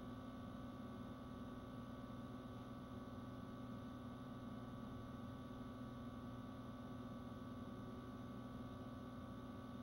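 A faint, steady hum made of several constant tones over a low background hiss, with no change throughout.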